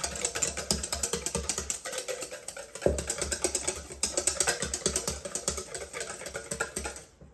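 A utensil beating a raw egg-yolk and paprika mixture in a bowl, with fast, steady clicking against the bowl that stops near the end.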